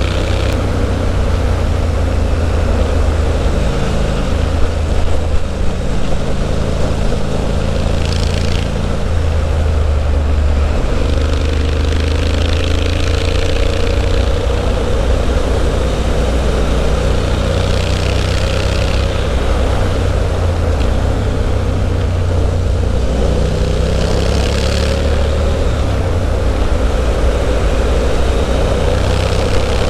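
Triumph Street Scrambler's 900 cc parallel-twin engine running at cruising speed through a Zard aftermarket exhaust, its note rising and falling a little with the throttle, over steady wind rush.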